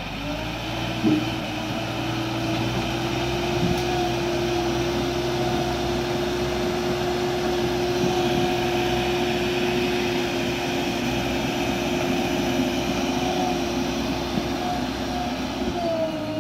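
JCB backhoe loader's diesel engine revving up and running at high, steady revs as the front bucket pushes soil, its pitch dropping back near the end. A sharp knock sounds about a second in.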